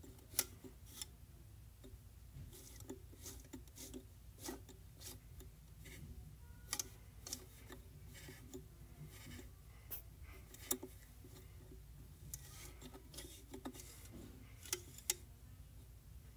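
Etch A Sketch drawing knob being turned: a faint, irregular run of scratchy clicks and ticks, a few of them sharper, over a low steady hum.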